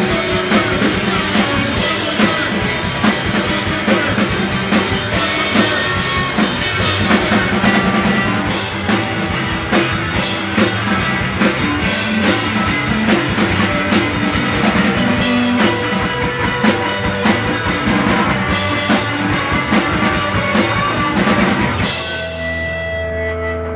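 Rock band playing live, with a drum kit driving the song. About twenty-two seconds in, the drums stop and a held chord rings on.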